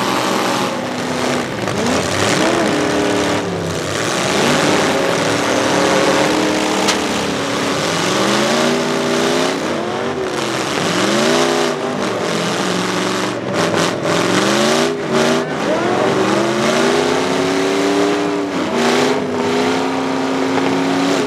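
Full-size demolition derby trucks' engines revving hard through open exhaust stacks. The pitch climbs and drops again and again as the drivers floor it and back off while ramming one another.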